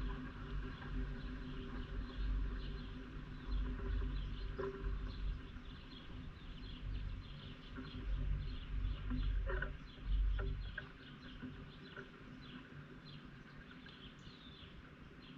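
Small birds chirping over and over in short, quick notes, over a low rumble that fades after about ten seconds, with a few soft clicks.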